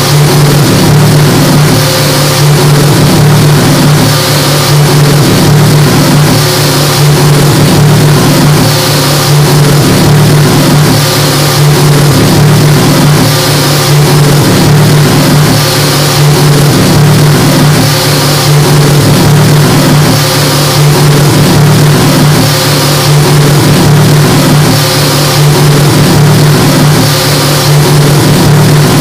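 Loud electronic noise-music drone played through loudspeakers: a steady low hum under a dense hiss, with a high hissing wash that swells about every two seconds.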